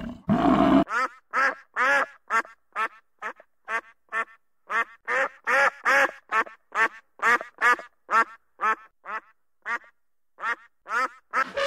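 Mallard duck quacking: a long, steady series of short quacks, about two or three a second, with a few brief pauses.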